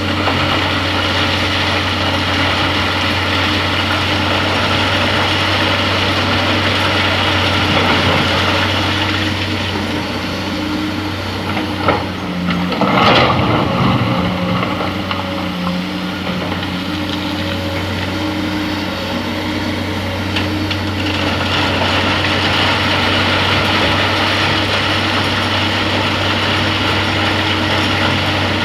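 Heavy diesel engine of earth-moving machinery running steadily, with a brief loud clatter about halfway through.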